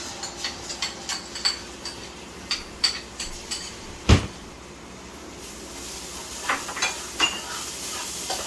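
A metal spoon clinking and tapping against a cooking pot and spice containers, a quick run of light clinks about three a second, with one heavier knock about four seconds in. From about halfway, a sizzle of seasoning frying in the pot rises under a few more clinks.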